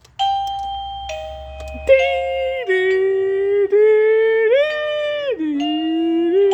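Electronic doorbell chime playing one of its built-in tunes: a two-note ding-dong, then a short melody of held notes.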